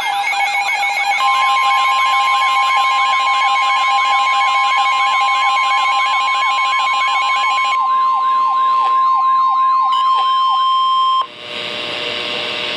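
Weather radio alert: a siren-like alarm sweeping rapidly up and down several times a second, joined about a second in by the NOAA Weather Radio's steady 1050 Hz warning tone. Both stop about eleven seconds in, leaving a short stretch of radio hiss before the warning message.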